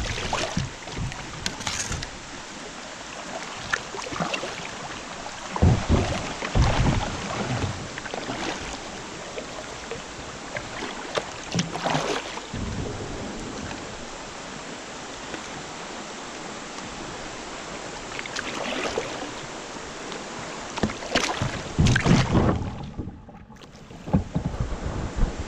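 Kayak paddling on a river: paddle strokes in the water come every few seconds at an irregular pace, over steady running water, with wind on the microphone.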